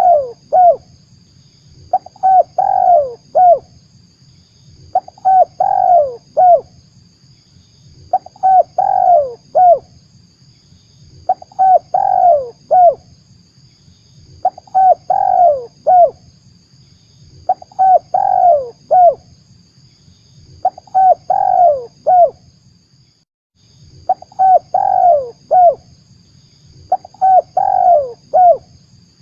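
Spotted dove cooing, a lure call for trapping doves: the same short phrase of several falling coos repeats about every three seconds.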